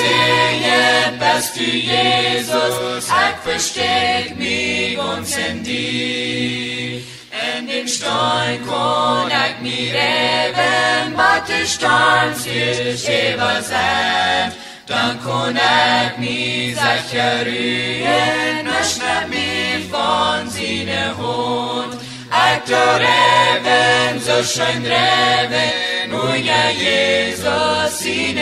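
Several voices singing a slow hymn in Low German, in held phrases with short breaks between lines, over sustained low notes.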